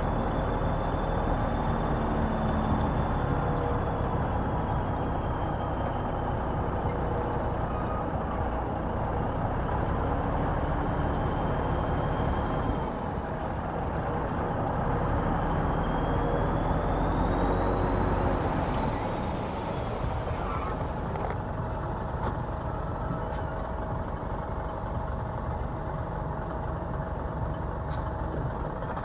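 Heavy diesel earthmoving machinery running steadily under load. A thin, high whine wavers in pitch over the engine note.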